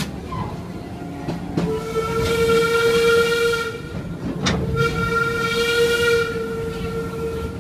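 Steam locomotive whistle blown twice, two long steady blasts of about two seconds each, with a sharp click between them, over the low rumble of the passenger cars on the rails.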